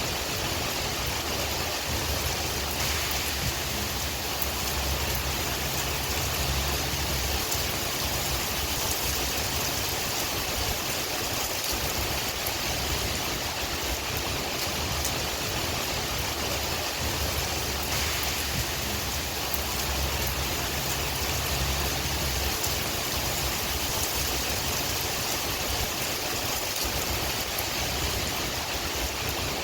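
Steady rain with wind: an even hiss of falling rain with scattered drop ticks, and a low wind rumble that swells and fades twice.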